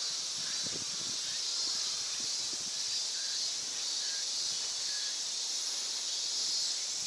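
Steady, high-pitched buzzing of a summer insect chorus.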